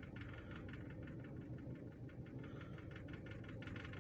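Toyota Corolla 1.3-litre four-cylinder engine idling, faint and steady, with a fast light ticking over the hum. The idle wavers around 730 rpm, which the mechanic puts down to slightly cracked ignition coil boots.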